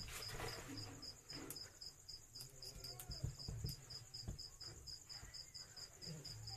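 Cricket chirping: a faint, even train of short high pulses, about four or five a second, over a steady high trill.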